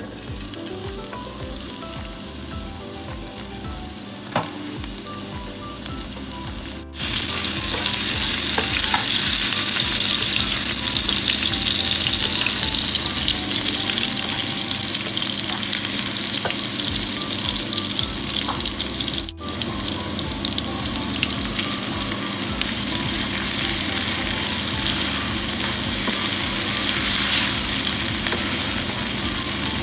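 Chopped garlic sizzling as it fries in hot oil in a pan, the sizzle getting much louder about seven seconds in. Near the end, sliced onions go into the pan and are stirred with a spatula.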